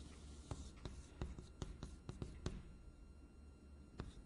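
Chalk writing on a blackboard: irregular sharp taps and short scratching strokes, several a second.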